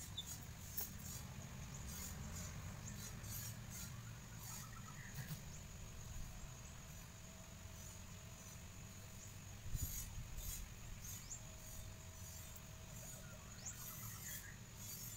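Quiet outdoor garden ambience: a steady high insect hum with scattered faint ticks, a few short chirps and a low rumble, and a soft thump about ten seconds in.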